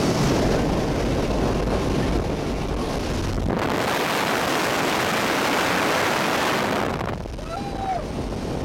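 Jump plane's engine running steadily under wind noise in the cabin. From about three and a half seconds in until about seven seconds, a louder rush of wind takes over at the open door, then drops back to the cabin engine noise.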